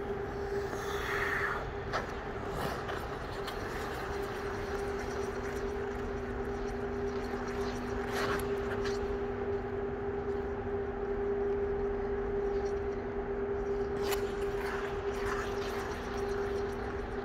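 Figure skate blades gliding and scraping on rink ice, with a few short sharp scrapes, over a steady two-pitch hum of the ice rink's machinery.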